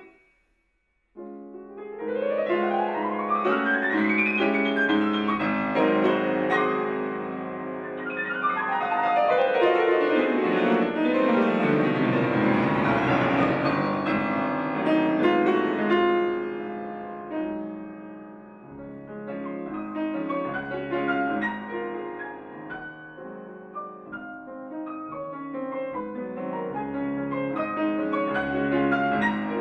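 Grand piano played solo in a fast virtuoso classical passage. After a brief pause about a second in, a rapid rising run leads into loud, dense playing, with a long sweeping descending run near the middle and full chords after it.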